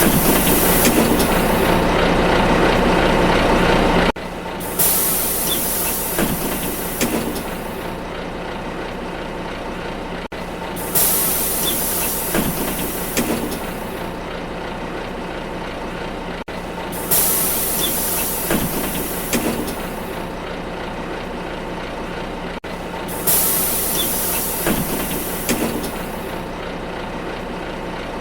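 City bus pneumatic door opening: a sudden hiss of released compressed air that fades over a few seconds, with a few clunks from the door mechanism. The sequence repeats about every six seconds over a steady low bus rumble.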